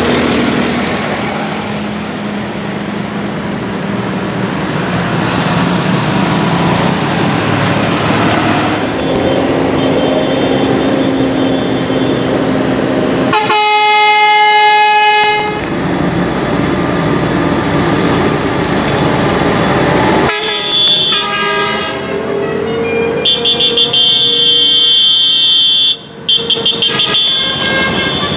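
Tractors driving past in a parade with their diesel engines running, then a long, steady horn blast about halfway through and a series of short horn toots and blasts in the last third.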